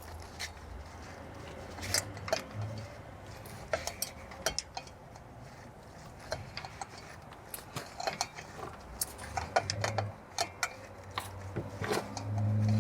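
Irregular light clicks and clinks of hand tools and metal parts being handled, with a low hum that swells near the end.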